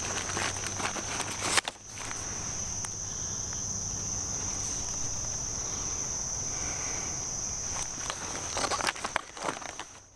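Insects singing in a steady, high, unbroken chorus, with rustling of a fabric pouch and packaging being handled during the first second and a half and again near the end.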